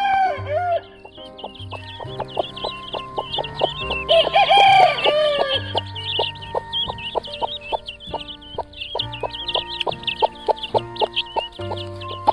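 Rooster crowing: a crow trailing off in the first second and a fuller crow of about a second and a half, about four seconds in. Rapid high chirping runs throughout, over background music with a steady plucked beat.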